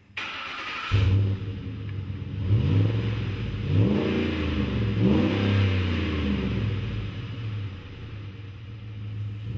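Ford F-150 V8 through a Dynomax Ultra-Flo stainless cat-back exhaust with a 3-inch single pipe, idling with three quick throttle blips about two and a half, four and five seconds in, the revs rising and falling each time. It sounds mean and aggressive.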